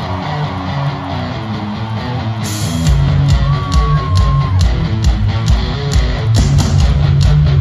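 Live rock band playing through a festival PA, led by electric guitar. Cymbals, bass and drums kick in heavily about three seconds in.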